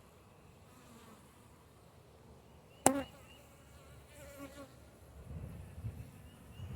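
Honey bees buzzing around an open hive, the hum growing louder in the last couple of seconds, with a wavering buzz as a bee flies close past. A single sharp knock about three seconds in.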